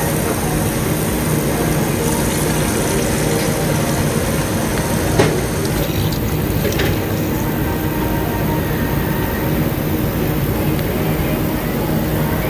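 Tap water pouring from a faucet into a plastic tub, filling it around soaking ice machine parts, with a light knock about five seconds in.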